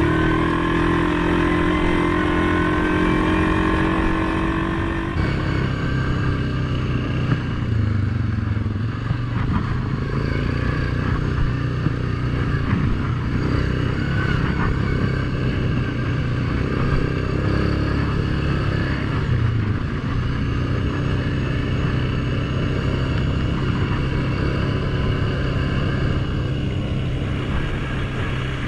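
ATV engine running as the quad is ridden along a dirt trail, its note rising and falling with the throttle. For about the first five seconds a different, steadier tone with a slowly rising pitch is heard instead, and it cuts off suddenly.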